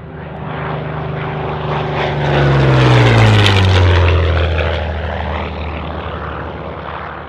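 Propeller-driven light airplane flying past. The engine note swells in, is loudest about three seconds in, drops in pitch as it passes, then fades away.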